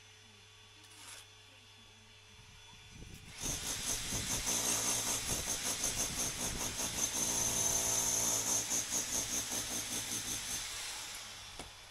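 Electric power drill boring into concrete packed in a brick wall's cavity. It starts about three seconds in, runs for about seven seconds with a pulsing, uneven note, and winds down near the end.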